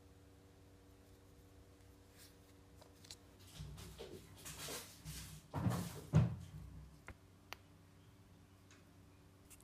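Handling noise from small tubes of two-part epoxy being uncapped and squeezed on a silicone work mat: a run of rustles and soft knocks a few seconds in, the two loudest thumps close together about halfway through, then a couple of small clicks.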